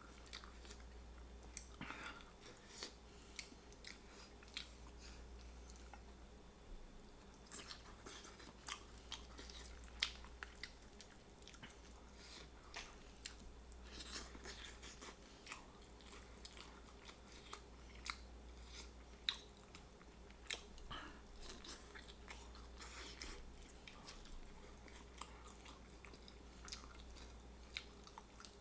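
Close-up chewing and biting of barbecue rotisserie chicken: faint, irregular wet clicks and small crunches of skin and meat, a few louder bites among them, over a steady low hum.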